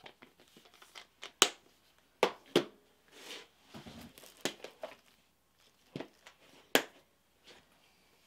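Hard plastic accessory case for a sewing machine being handled and set down on a table: a scattering of sharp clicks and knocks of plastic on plastic, the loudest about 1.5 s and 7 s in, with some light crinkling between them.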